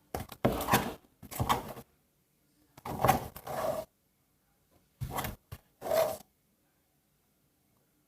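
Shampoo slime being squeezed and kneaded by hand, about six short squishing bursts with silent gaps between them.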